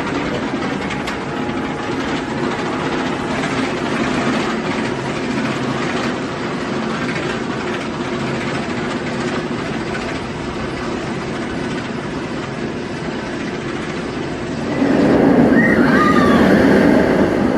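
Amusement-ride train running along its track, wheels rattling and clattering steadily. Near the end it grows louder, with a few brief rising and falling high sounds.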